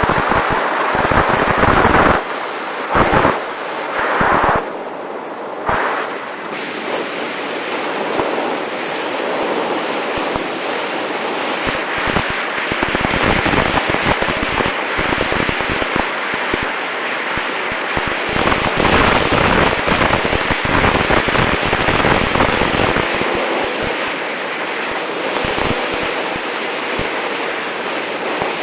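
Wind rushing and crackling over the onboard HD camera's microphone on the Mini Talon in flight, with a faint steady whine underneath; the level dips and breaks up several times in the first few seconds.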